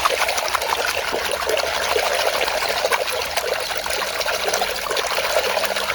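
Water running and splashing over a plastic toy as it is washed clean of dirt, a steady trickling pour with small irregular spatters.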